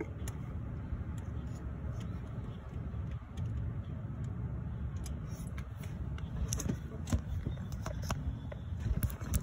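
Light metallic clicks and taps as a 10 mm socket on a long ratchet extension is worked down onto a screw deep in an engine bay. They come irregularly, mostly in the second half, over a steady low rumble.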